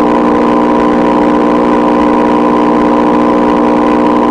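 A loud, steady synthesized drone of an emergency-alert broadcast, many pitches held together without change.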